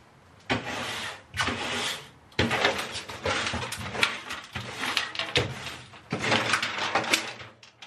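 A broom sweeping the bare cargo floor inside a van in a series of brisk strokes, scratchy swishes with the odd sharp knock of the bristles or handle.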